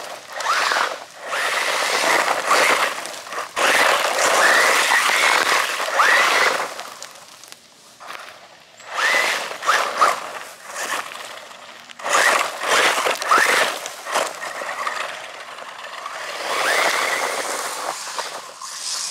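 RLAARLO 1/14 scale brushless 4WD RC buggy driving fast on gravel: about five bursts of high-pitched motor whine that rises and falls with the throttle, with tyres crunching and scattering gravel, separated by quieter lulls.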